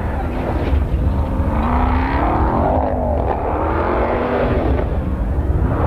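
Ram 1500 TRX's supercharged 6.2-litre V8 revving hard while the truck spins donuts in dirt, its pitch rising and falling several times over a steady low rumble.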